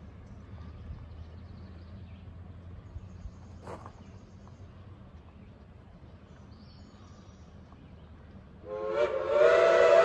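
Steam locomotive whistle blowing a loud chord of several notes at once, starting about nine seconds in and still sounding at the end, over a faint low rumble.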